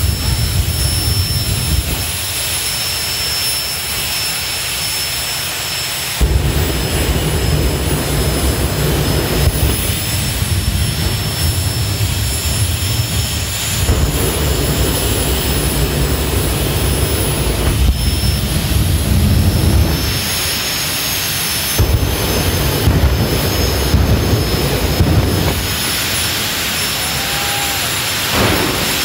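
Jet engines of jet-powered drag cars running in a flame-out show: a loud, continuous roar with a steady high turbine whine. The low roar surges and drops every few seconds as the afterburners throw flame.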